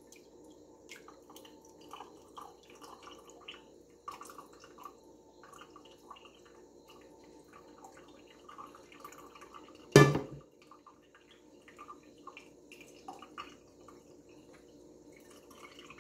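Soft goat-milk curds and whey sliding from a pot into a cheesecloth-lined colander in a stainless steel sink, with whey dripping and small wet splats throughout. About ten seconds in comes a single loud metal clunk as the pot is set down.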